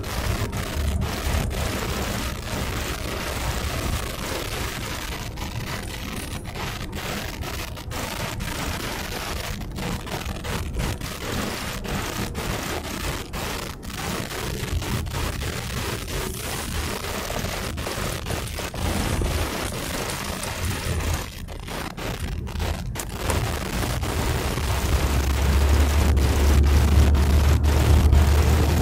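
Road noise inside a moving car's cabin: a steady low rumble with a hiss over it, growing louder near the end.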